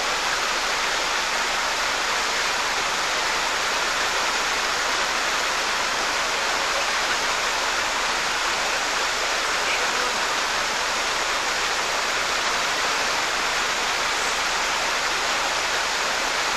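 Whitewater rushing steadily over rocks in a rapid: a loud, even wash of water noise that does not change.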